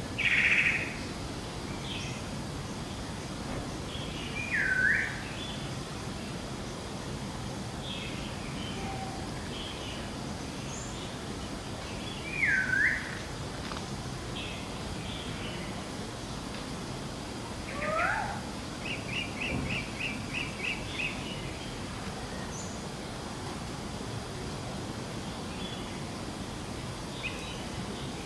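Birds calling: a loud call just after the start, two whistles that dip and rise, a rising sweep, then a quick run of about nine short notes. Faint chirps and a steady low background rumble lie under them.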